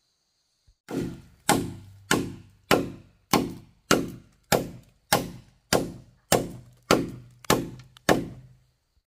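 Heavy blows on wood, thirteen in an even rhythm of a little under two a second, each a sharp thunk that dies away within half a second.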